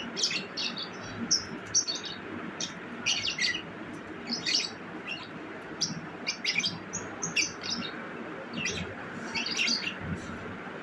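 Pet lovebird chirping in a rapid, irregular string of short, high-pitched calls.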